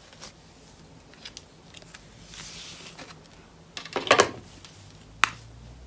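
A synthetic wig's long hair being combed and handled: soft rustling, a louder burst of rustles and clicks about four seconds in, and one sharp click about a second later.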